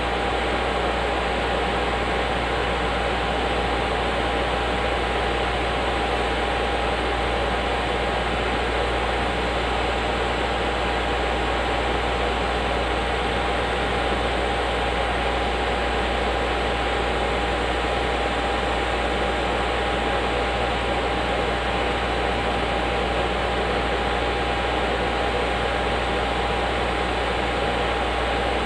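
Hot air rework station blowing from its handheld nozzle onto a graphics card's circuit board to heat its components: a steady rush of air with a constant whine running through it.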